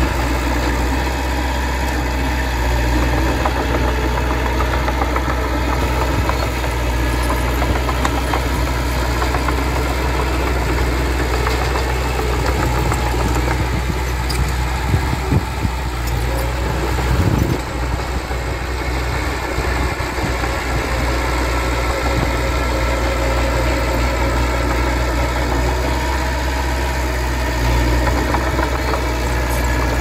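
Diesel engine of heavy earthmoving machinery running steadily, with a few short knocks a little past the middle.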